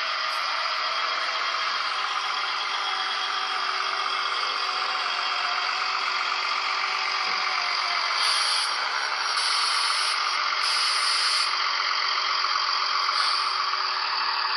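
Sound decoder in a Z-scale VT 98 railbus model playing its diesel railcar engine sound through a tiny speaker. The sound is steady and thin, with no deep bass, and a few short high hisses come in the second half.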